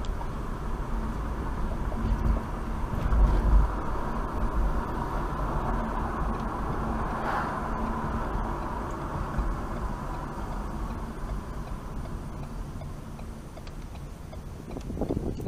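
Car driving on a city street, heard from inside the cabin: a steady low rumble of tyres and engine, with a louder rumble about three seconds in.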